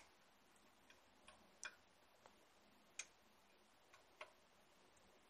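Near silence broken by about seven faint, sharp clicks at uneven intervals, the clearest a little under two seconds in and at about three seconds.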